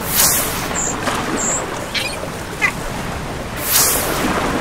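Steady rush of wind and waves on open water, swelling twice, with a few short high chirps in between.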